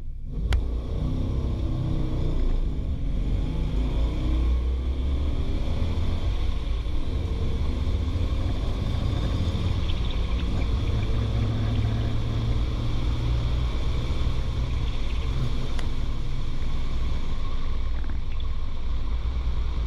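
Studebaker's engine heard from inside the cabin, running hard under acceleration through a drag-strip pass: a loud, steady low drone with a few changes in pitch.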